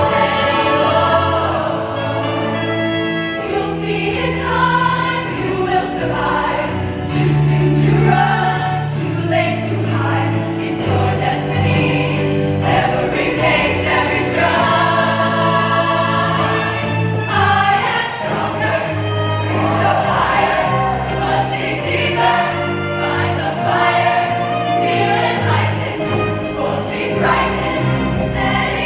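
Women's show choir singing with a live backing band, sung lines over sustained bass notes.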